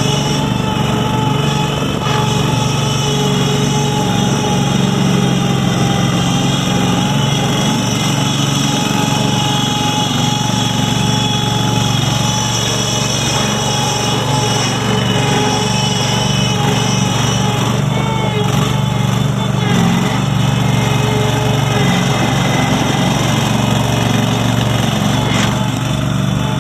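A 1999 Terramite T5D loader backhoe's 20 HP Kohler gas engine running steadily at a constant speed.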